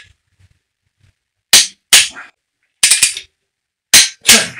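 Click-type torque wrench clicking over on the main bearing cap nuts, a sharp click each time a nut reaches the set 25 lb-ft. About six clicks, mostly in pairs, starting about one and a half seconds in.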